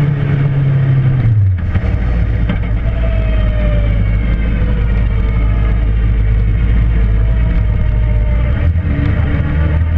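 Suzuki GSX-R motorcycle engine, said to be a bad motor, running; it drops from raised revs to a steady idle about a second in, and picks up a little again near the end.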